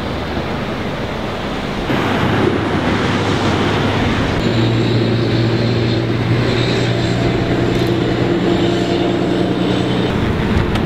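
A motor runs steadily under a broad rushing noise that gets louder about two seconds in. A few seconds later a low hum with overtones and a thin high whine join it.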